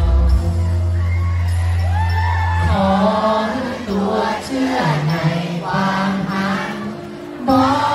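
A male singer sings live into a handheld microphone over an amplified pop backing track, with crowd noise underneath.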